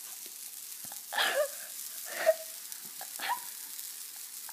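Pancake batter sizzling on a hot electric griddle as thick batter is poured onto it, a steady hiss. Three short, louder sounds come about a second apart.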